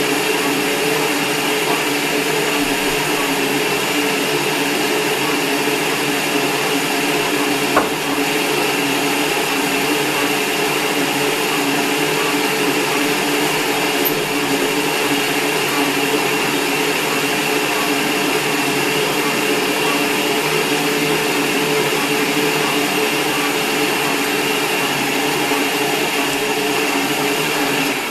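Electric stand mixer motor running steadily at speed while mixing biscuit dough in its steel bowl, with a constant hum. It winds down at the very end as it is switched off.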